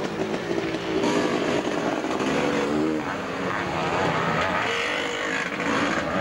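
Motocross sidecar outfit's engine revving hard as it races past close by, the pitch rising and falling with the throttle.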